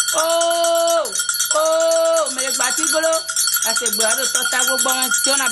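A voice sings two long held notes, then quicker rising and falling phrases, over constant high jingling percussion.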